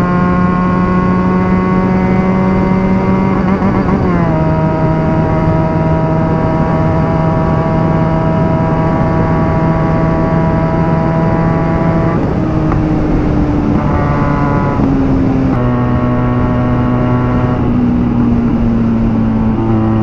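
Benelli TNT 300's parallel-twin engine running hard at high speed, heard from the rider's seat with wind noise. The engine note drops sharply about four seconds in, holds steady, then steps lower a couple of times in the second half.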